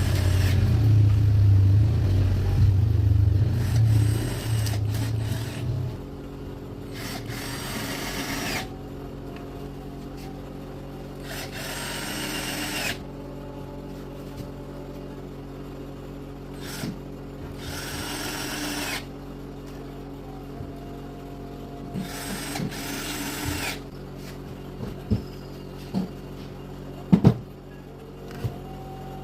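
Electric drill driving screws into board: a steady low motor hum for about six seconds, then four short separate bursts of the drill running, each a second or so long, with a few sharp knocks near the end.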